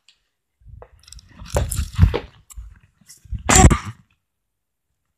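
Handling noise on a handheld camera's microphone: two loud spells of rustling and bumping, the second about three seconds in, as the camera is carried along.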